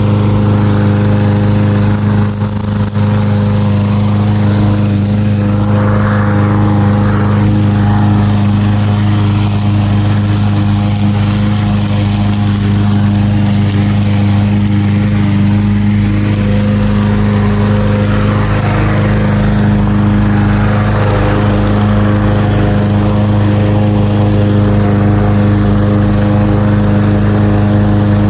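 Walk-behind lawn mower running steadily while cutting rye grass, a constant drone with a brief dip about two and a half seconds in.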